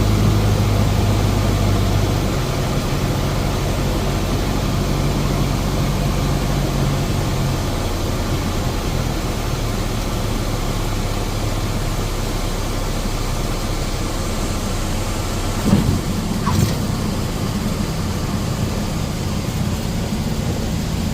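Small aircraft's engine running steadily, a low drone. Two short clicks sound about 16 seconds in.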